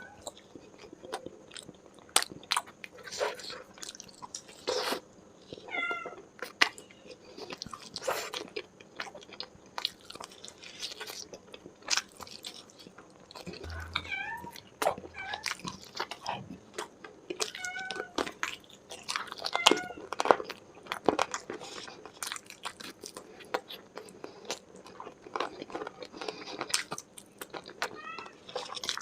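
Close-miked chewing and biting of food: wet smacking and crunchy bites, with many sharp crackles. A few short, wavering high-pitched squeaks come through several times.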